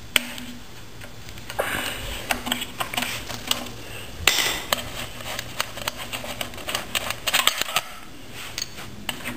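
Screwdriver unscrewing the screw on a small Briggs and Stratton engine's air-filter cover, then the cover and screw being handled: a run of small clicks, scrapes and metal rattles, with one louder clatter about four seconds in.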